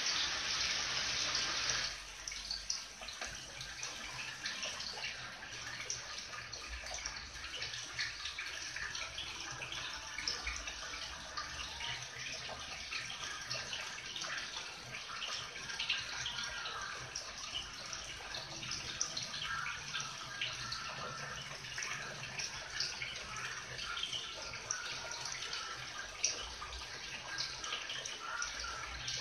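Water splashing and trickling steadily into a garden koi pond from a small rock waterfall, louder for the first two seconds.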